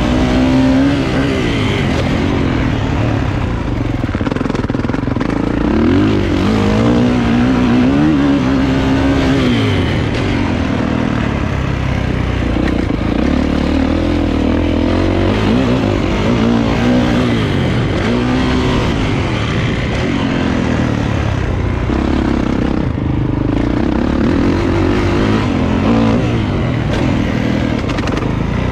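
Kawasaki KX450 four-stroke single-cylinder motocross engine under hard riding, revving up and dropping off again and again, its pitch rising and falling as the throttle is worked through the corners.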